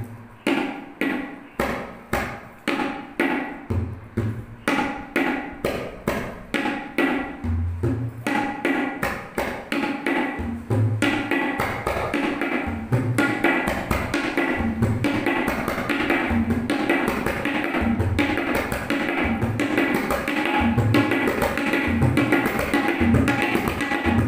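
Tabla played in the repeating 'ge ge tit ke tit' pattern, starting slowly and steadily speeding up until the strokes run together, imitating the rhythm of a moving train. Deep bass strokes from the bayan recur under the sharper strokes of the dayan.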